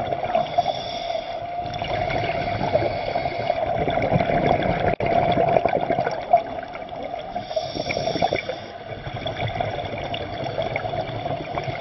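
Steady gurgling and trickling of water, with a brief break about five seconds in.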